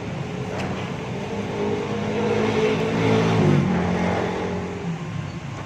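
A motor vehicle's engine running past close by, growing louder to a peak a little past the middle, dropping in pitch and fading away, over a steady low traffic rumble.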